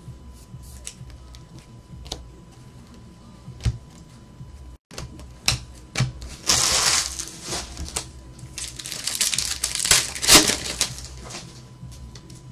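Trading cards handled with light clicks, then a foil card-pack wrapper crinkled and torn open in two loud rustling spells in the second half.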